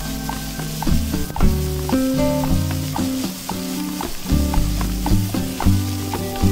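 Bitter melon and onion slices sizzling as they fry in a nonstick pan, stirred and scraped with a spatula, under background music with a melody and a bass line.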